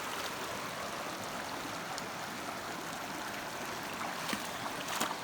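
Creek water running steadily over rocks, a continuous rushing babble, with a couple of brief sharp sounds near the end.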